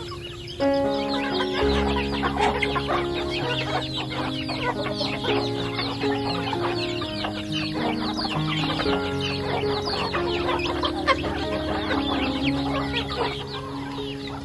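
A flock of chickens clucking and calling, many short chirps overlapping, over background music of slow held notes.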